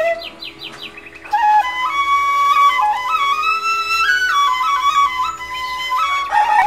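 Background music: a flute melody moving in steps over a steady held drone. It is quieter for about the first second and a half, then comes back louder.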